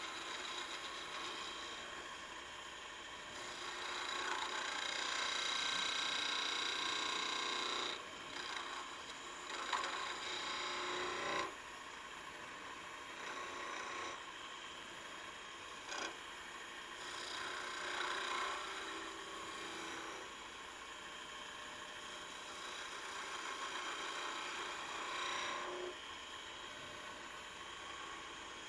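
Wood lathe running while a skew chisel takes a series of cuts on a spinning spindle, each pass a hissing shaving sound. The longest and loudest cut comes about four to eight seconds in, with shorter passes after it and a single sharp tick about halfway through.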